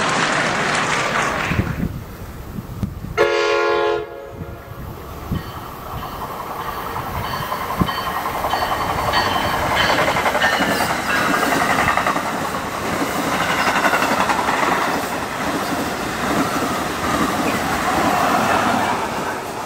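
New Jersey Transit commuter train of double-deck Multilevel coaches passing on the tracks, a rumble and clatter of wheels on rail that builds from about five seconds in and stays loud. A single train horn blast sounds about three seconds in.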